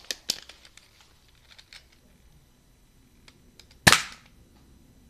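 Toy foam-dart pistol: two sharp plastic clicks at the start as it is handled and cocked, then one loud, sharp shot about four seconds in as it fires.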